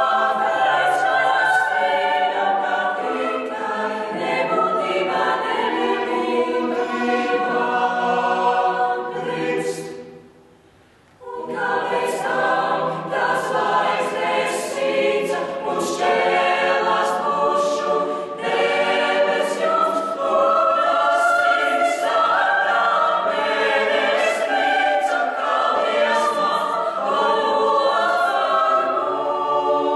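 Mixed-voice school vocal ensemble singing a cappella in several parts. The voices break off for about a second near the middle and then come back in together.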